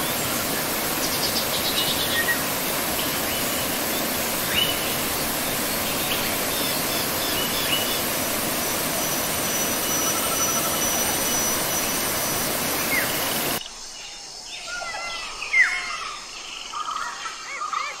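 Steady rush of a waterfall pouring into a pool, with birds chirping over it. About three-quarters of the way in the rush cuts off suddenly to a much quieter background in which bird calls stand out, one of them loud.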